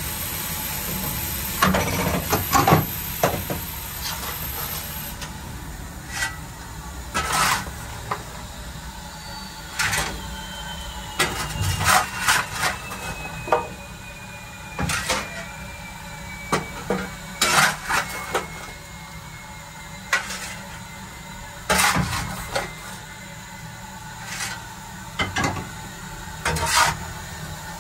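Fireman's coal shovel scraping and clattering as coal is fired into a steam locomotive's firebox: irregular sharp scrapes and knocks, over the engine's steady low rumble and hiss.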